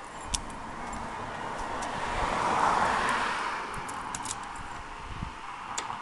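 A car passing by, its noise swelling and then fading over a few seconds, with a few light clicks near the end as a key goes into the towbox's lock.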